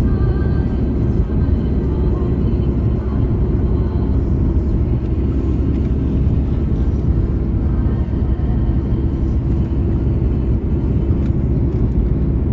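Steady low drone inside the cabin of a BMW E46 330d cruising on an open road: the 3.0-litre straight-six diesel running, with road and wind noise.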